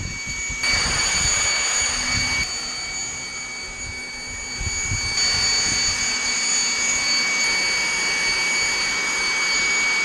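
Corded electric leaf blower running continuously, a rush of air under a steady high whine, as it blows snow off a car. The airflow grows louder about half a second in and again around five seconds in.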